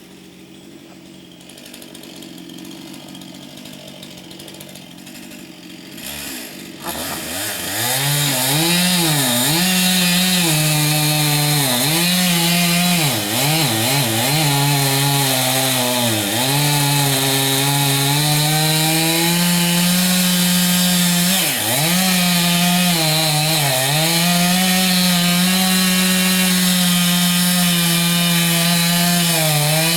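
Two-stroke chainsaw revving up about seven seconds in, then running at full throttle as it cuts into a tree trunk. Its pitch dips again and again as the chain bogs under load in the cut.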